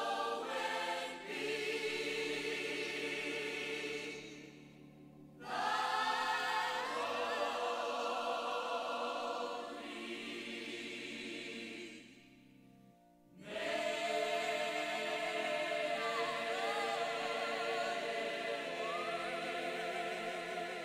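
A choir singing over held low notes in three phrases, with short pauses about four and twelve seconds in.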